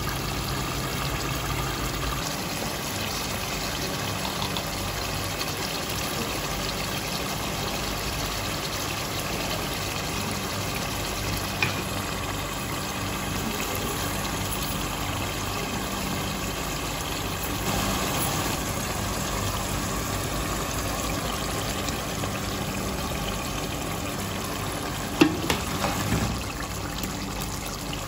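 Meat curry simmering in an open pot, bubbling steadily over a steady low hum. A couple of short knocks break in, the sharper one near the end.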